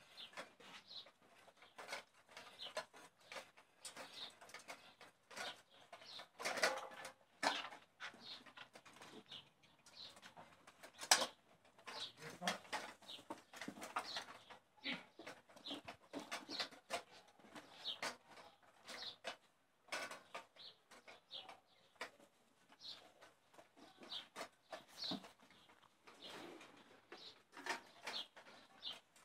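A litter of German shepherd puppies eating from stainless steel bowls: a steady scatter of irregular clicks and clatters of muzzles, food and metal bowls.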